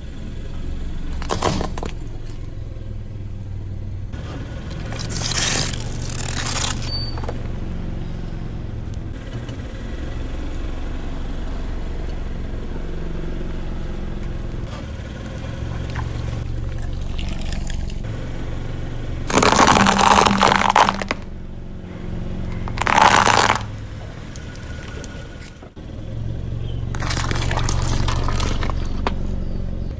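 Car engine running at low speed under a series of loud crunches and cracks as its tyre rolls over and crushes objects, plastic toys among them. Near the end the tyre squashes a row of tomatoes with a wet crunch.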